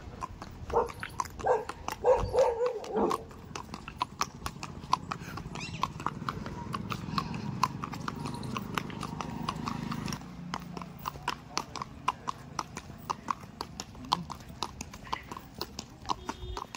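Horse's hooves clip-clopping in a steady rhythm as the mare is ridden.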